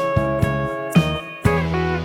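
Background music: a guitar-led track over a steady bass with a beat about twice a second.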